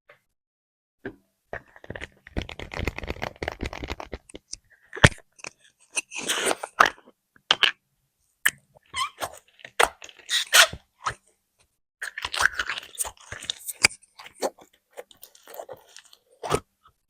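Crunchy slime being squeezed and pressed, giving irregular crackles and pops with short silent gaps between them. The crackling is densest about two seconds in and again near the end.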